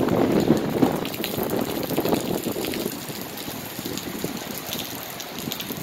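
Heavy rain pouring down, with gusty wind buffeting the microphone. The gusts are strongest in the first two or three seconds, then ease. Scattered drop ticks sound through the hiss.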